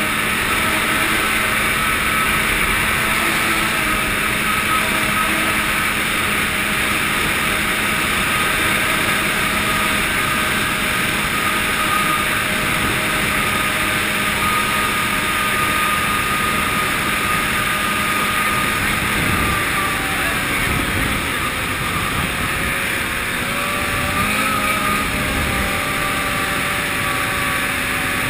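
Ski-Doo snowmobile engine running steadily at speed, heard from the rider's seat, its pitch wavering a little about two-thirds of the way in.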